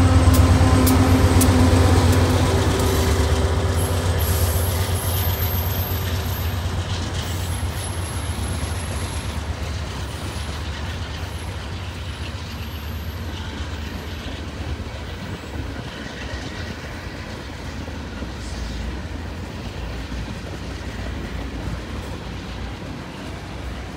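Union Pacific diesel freight locomotives passing and pulling away. Their engine drone fades over the first several seconds and leaves the steadier rumble of the freight cars rolling by, which grows fainter toward the end.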